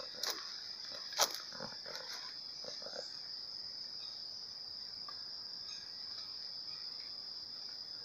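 Insects buzzing steadily at a high pitch. A few crunching footsteps on leaf litter sound in the first second or so.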